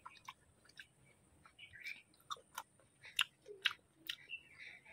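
Faint, close-up chewing of a mouthful of cooked leafy greens (kulpo shak): scattered small wet mouth clicks and smacks, starting about a second and a half in.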